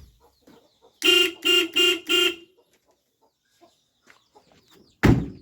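Car horn, sounded through a light switch wired in place of the horn button, beeping four short times in quick succession, about two and a half beeps a second. A loud thump follows near the end.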